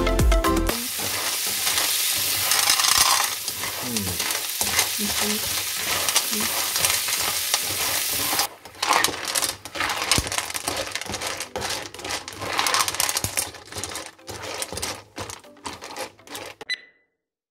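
Periwinkles frying in butter in a non-stick pan: a steady sizzle for the first half, then the shells clicking and rattling against the pan as a plastic spatula stirs them, with the sizzle going on underneath.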